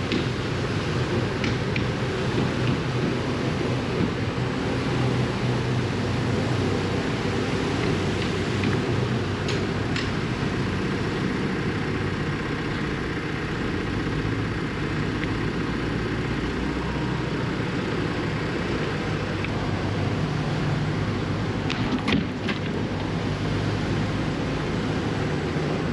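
Diesel engine of a bladed earthmoving machine running steadily under load while grading base material, with a few sharp clanks.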